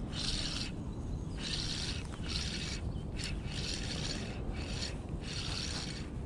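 Jacket sleeve rubbing against the body-mounted camera in a steady rhythm, about one rasping stroke a second, as the arm cranks a spinning reel to retrieve a lure. A low steady rumble runs underneath.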